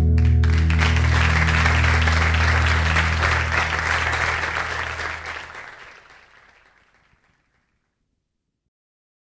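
Live audience applauding at the end of a song while the final acoustic guitar chord rings out underneath. Both fade away, and the sound is gone about seven seconds in.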